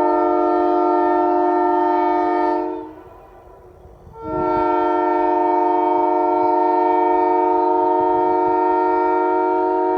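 Leslie Supertyfon S3K three-chime air horn sounding a steady chord in two long blasts: the first cuts off about three seconds in, and after a short break the second starts about four seconds in and holds on.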